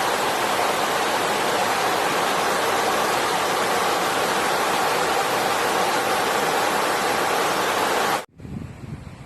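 Steady rushing water, an even loud hiss that cuts off abruptly about eight seconds in, followed by a much quieter low rumble.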